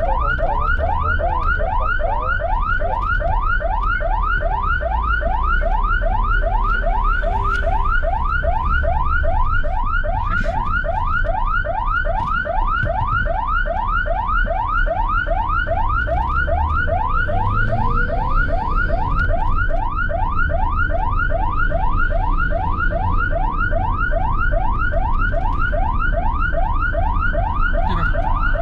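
Ambulance siren in fast yelp mode: a steady train of rising whoops, about three to four a second, over the low rumble of the engine and road.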